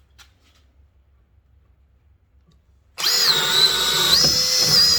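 Cordless hammer drill boring a 1-inch Irwin bit through wood, starting about three seconds in. The motor whine dips in pitch under load, then picks up again as the bit goes right through.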